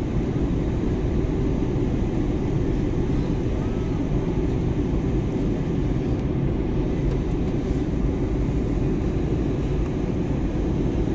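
Steady engine and airflow noise of an airliner in flight, heard from inside the passenger cabin: an even, low rumble with no change in level.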